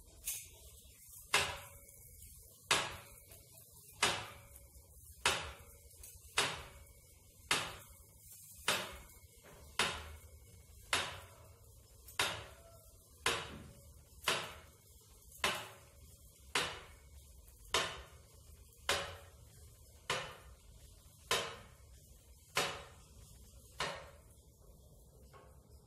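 Homemade hand-cranked tube roller bending a galvanized steel tube, giving a sharp clack about once a second with each turn of the crank, in a steady rhythm of about twenty clacks.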